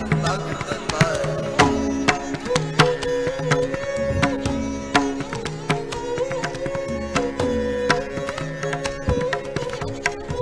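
Dilruba, harmonium and tabla playing an instrumental passage of Sikh kirtan. A bowed melody runs over held harmonium notes, with steady tabla strokes and now and then a low tabla stroke sliding down in pitch.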